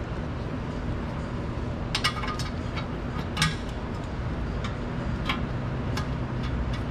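Light metallic clicks and taps, scattered every second or so, as oil pan bolts are handled and threaded in by hand along the oil pan flange, over a steady low background hum.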